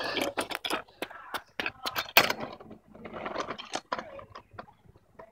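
Clatter close to the microphone, a quick run of knocks, clicks and rustles as a kick scooter is grabbed and moved right beside the phone, thinning out after about four seconds.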